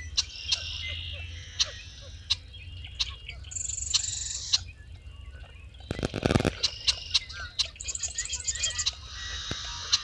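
A chorus of marsh birds at dawn: repeated high trills and short chips and calls overlapping one another, with a loud, harsh burst about six seconds in.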